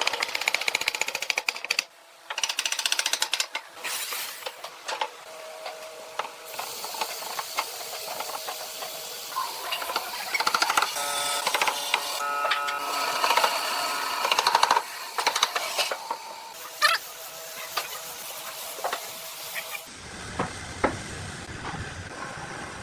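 Workshop tool noise: a small machine running with many sharp clicks and knocks, changing abruptly to a different, quieter sound about 20 seconds in.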